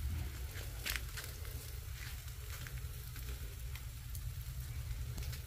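Marinated chicken sizzling on a charcoal barbecue grill, with a few sharp crackles, the clearest about a second in, over a low steady rumble.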